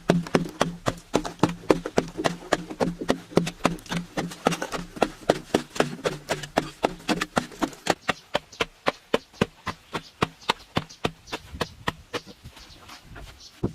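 Rapid, regular knocking or tapping, about five sharp strikes a second, with a low steady hum under the first half; the strikes grow fainter and sparser near the end.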